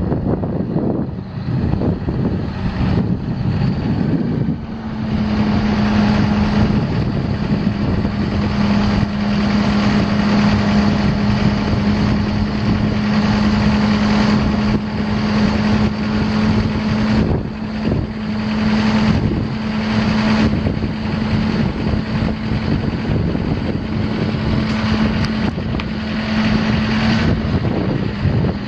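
Diesel engine of a Ford F750 digger derrick truck running steadily, with a droning tone that sets in about five seconds in and holds nearly to the end. Wind buffets the microphone.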